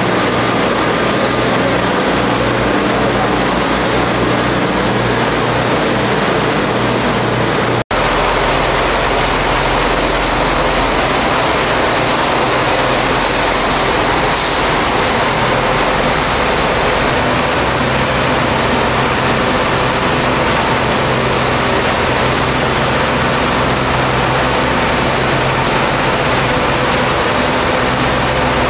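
Steady, loud noise of high-pressure water spray over a running engine from tunnel-washing equipment, with a short sharp hiss about halfway through. The sound briefly cuts out about eight seconds in.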